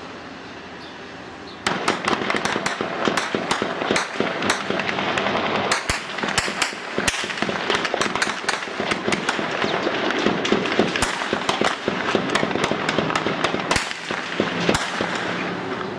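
Heavy gunfire from automatic weapons firing tracer rounds: it starts suddenly under two seconds in and goes on as dense, rapid, overlapping shots. Before it, a steady low hum.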